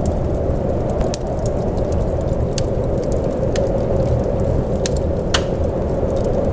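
Steady, muffled rain with a dull, low hiss, scattered with sharp crackling clicks.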